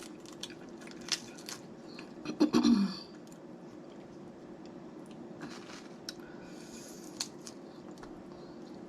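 Snow crab legs being eaten up close: sharp cracks and snaps of the shell, with chewing and sucking of the meat. A short, loud mouth sound comes about two and a half seconds in.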